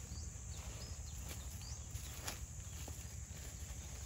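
Scattered cracks and rustles of dry twigs and leaves as Komodo dragons bite and tug at a goat carcass, over a steady low wind rumble. A few faint, high bird chirps come in the first two seconds.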